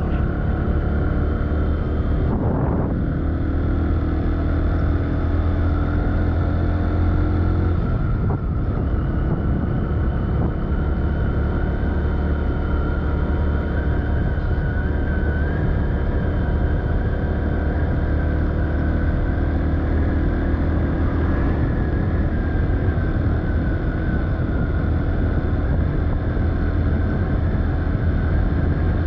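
Vehicle engine running steadily while travelling along the road, with a constant low hum and a faint whine that wavers slightly in pitch.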